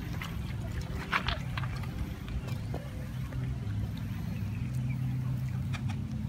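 Backyard chickens calling now and then, with one louder call about a second in, over a steady low mechanical hum.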